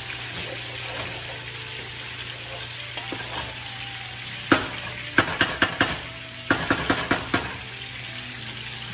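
Wooden spatula stirring sweet potato leaves in a cooking pot over a steady sizzle of cooking; about halfway through it knocks against the pot in a sharp click and then two quick runs of taps.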